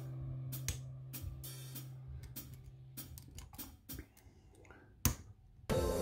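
Background music with drums fading out about halfway through, with scattered sharp clicks; a louder new piece of music starts abruptly near the end.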